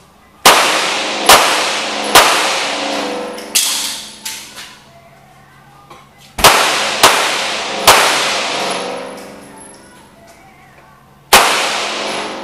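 Handgun shots at an indoor range, about eight in all: three about a second apart, a fourth a moment later, three more after a pause, and a last one near the end. Each shot rings on with a long echo off the concrete walls.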